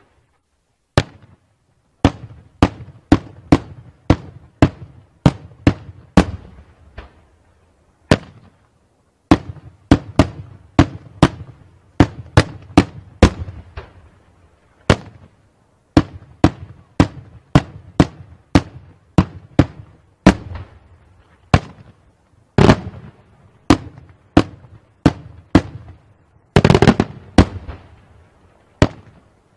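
Daytime fireworks: aerial charges bursting overhead in a rapid string of sharp bangs, about two a second, with brief pauses between runs and a denser cluster of bangs near the end.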